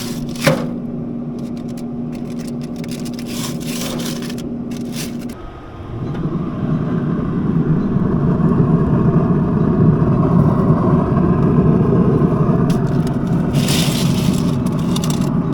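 A vehicle engine running with a steady hum. About five and a half seconds in it briefly drops, then comes back louder and rougher, as if pulling away. Scattered sharp clicks and crackles run over it.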